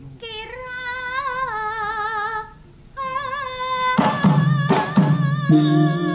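A woman singing long held notes with a wide vibrato, unaccompanied at first; about four seconds in, drum strokes and accompanying instruments come in under her voice.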